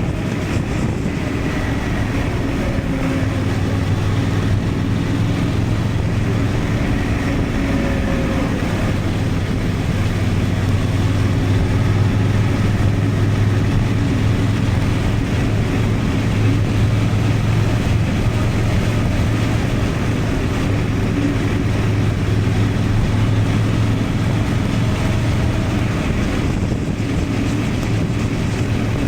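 Honda Transalp 750's parallel-twin engine running steadily at cruising speed, with road and wind noise; the engine note drifts slightly up and down in pitch.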